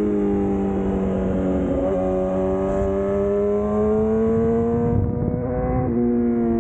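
Yamaha R6 inline-four engine running at high revs while riding, a loud, steady howl with wind noise. The pitch shifts abruptly about two seconds in and again near the end, and climbs slowly in between.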